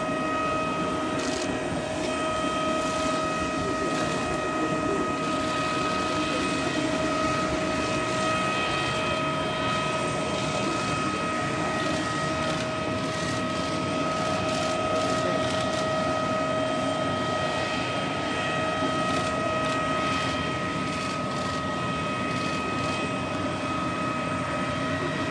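Jet aircraft engines idling: a steady high whine of several held tones over an even rushing hum.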